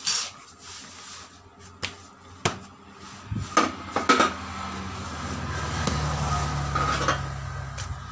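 Rubber of a large truck inner tube being handled and pressed flat by hand, with a few sharp knocks and metal clatters. A low steady hum comes in about three seconds in.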